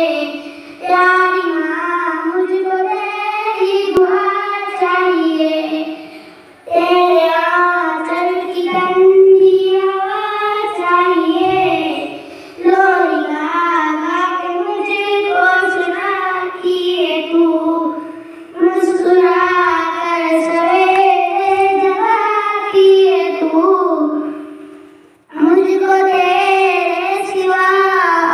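A girl singing solo into a microphone, reading the words from a sheet, with no instruments; the song comes in long phrases separated by short breaks.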